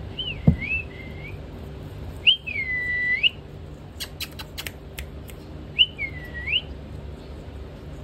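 Indian ringneck parakeet giving three whistled calls, each sliding down, holding and sweeping back up; the middle one is the longest. A quick run of sharp clicks comes midway, its beak working a corn cob.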